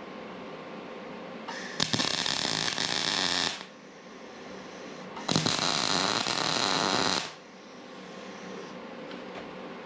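Two short bursts of arc welding, each about two seconds, starting and stopping abruptly, as nuts are welded onto a steel support bracket.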